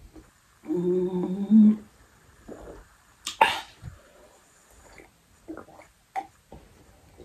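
A woman's voice reacting to chili heat: a closed-mouth hummed moan about a second in, then a single sharp, breathy burst a couple of seconds later. Small sipping and swallowing sounds follow as she drinks from a mug.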